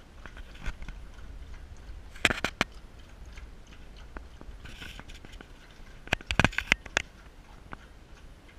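Puppy eating from its bowl: short bursts of crunching and clicks, one about two seconds in and a longer one around six to seven seconds in.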